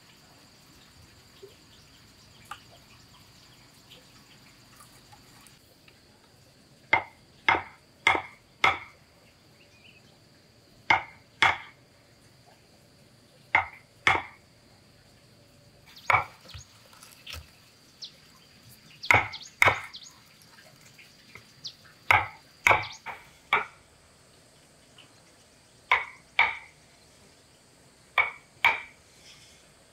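Hammer blows on wood: sharp knocks in groups of two to four, about half a second apart, with pauses of a few seconds between groups, starting about seven seconds in.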